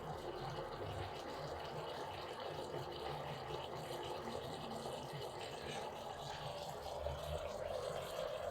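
9barista stovetop espresso maker brewing over a gas burner: a steady hiss with the sound of coffee running into the cup, growing a little louder near the end.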